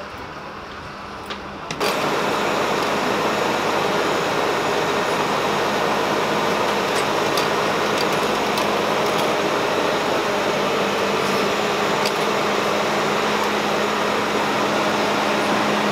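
Steady mechanical rush of a running fan with a constant low hum, starting abruptly about two seconds in, with a few faint clicks over it.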